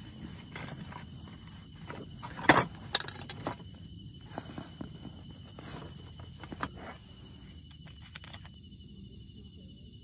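Scattered short knocks and clicks, the loudest about two and a half seconds in and the last around seven seconds in. Under them is a steady high insect trill.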